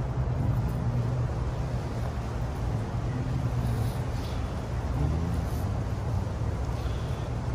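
Steady low background rumble without a break.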